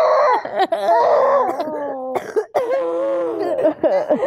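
Girls sobbing and wailing, the cries wavering in pitch and breaking off every second or so.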